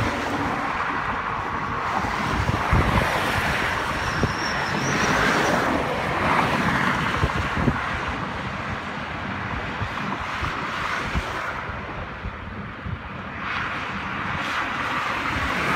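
Expressway traffic passing below: a steady hiss of tyres on the road that swells and fades as cars and trucks go by, easing off for a couple of seconds before rising again near the end, with wind buffeting the microphone.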